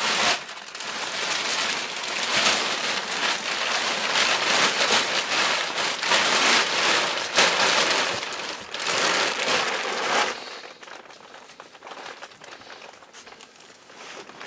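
Loud rustling and crinkling of bedding being handled, a mattress pad and mattress being shifted into place, stopping abruptly about ten seconds in and leaving faint crackles.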